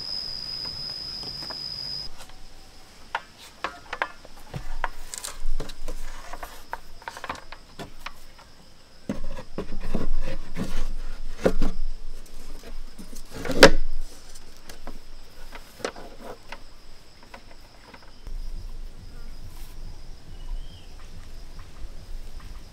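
A scattered series of knocks, taps and scrapes from hand work, with one louder knock about two-thirds of the way through, over a steady high-pitched whine that is strongest for the first two seconds.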